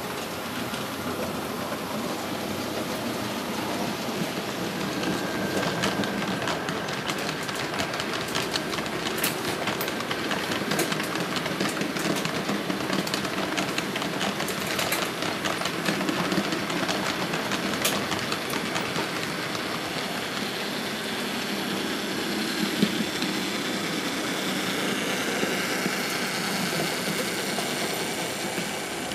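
HO scale Märklin model trains running on the layout's track: a steady rolling noise, with clusters of quick clicks through the middle as wheels pass over rail joints and turnouts.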